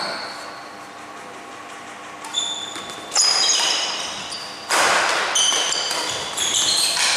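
Badminton rally in a large hall: rackets strike the shuttlecock again and again, each hit a sharp crack with a short high ring. The hits are sparse at first, then come quicker and louder about halfway through.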